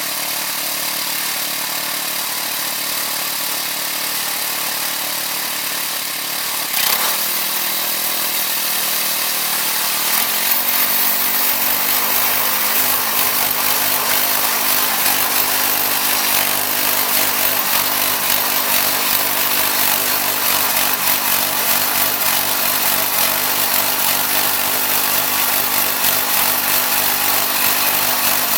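Wood-Mizer LX25 portable band sawmill running, its band blade sawing white oak as a steady, loud machine noise. The sound steps up about seven seconds in and gets busier from about ten seconds on.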